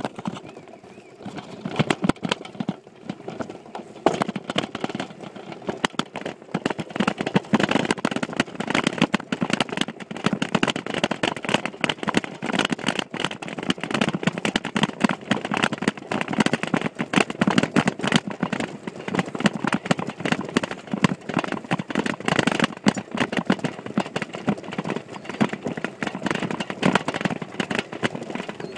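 Mountain bike and its handlebar phone mount rattling and knocking while riding over rough, bumpy grass: a dense, irregular clatter. It is lighter at first and grows busier and louder a few seconds in.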